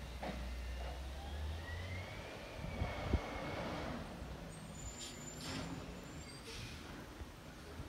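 Automated side-loader garbage truck working a short way off: its engine running, a rising whine, a sharp knock about three seconds in, then a few clatters and a brief high squeal as a cart is handled.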